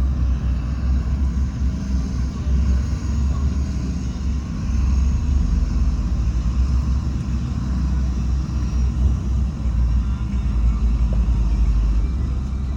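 Heavy earthmoving machinery's diesel engine running steadily with a deep low rumble.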